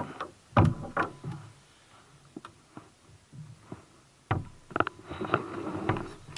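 Small waves lapping and slapping against a sea kayak's hull, in irregular splashes and knocks with quieter gaps between.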